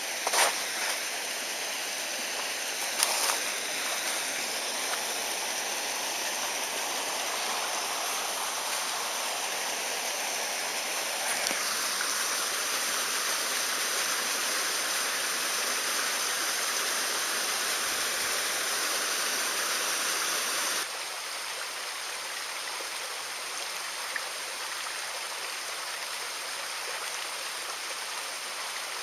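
Mountain stream rushing steadily, with a few sharp knocks in the first seconds; the rush gets louder about eleven seconds in and drops suddenly about twenty seconds in.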